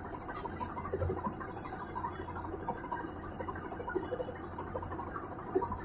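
Whirlpool Stainwash 6.2 kg top-loading washing machine running its spin-only cycle: a steady low hum with many small, irregular clicks and ticks over it.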